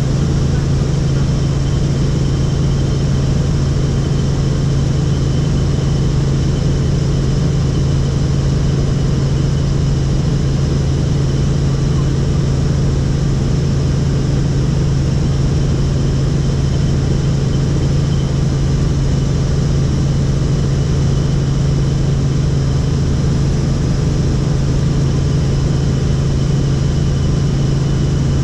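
Helicopter in steady flight: the rotor and engine make a loud, unchanging drone with a strong low hum and a faint high whine above it.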